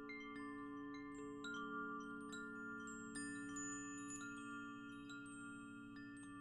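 Wind chimes ringing: frequent, irregular strikes at many different pitches, the notes overlapping and ringing on.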